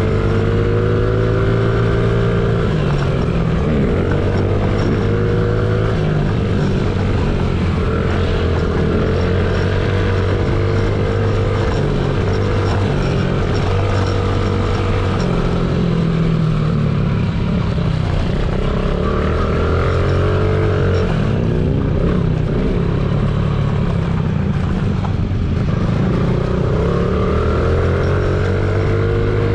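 Honda CRF50's small single-cylinder four-stroke engine running hard under load, its pitch repeatedly climbing and dropping as the throttle is opened and closed around the track.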